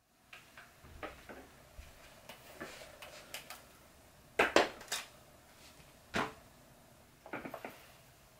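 Toshiba VC-8300 canister vacuum cleaner being carried and set down on carpet, switched off: scattered plastic knocks and clunks from its body, hose and wand. The loudest knocks come a little past the middle, with a quick run of small clicks near the end.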